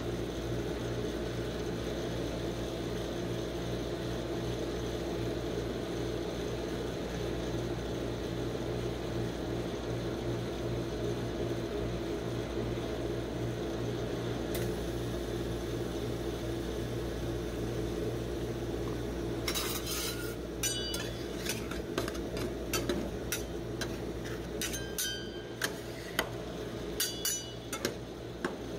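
Steady hum of the ice cream roll machine's refrigerated cold plate running. About two-thirds of the way in, metal spatulas start clicking and scraping on the frozen steel plate as they chop popcorn into the cream base.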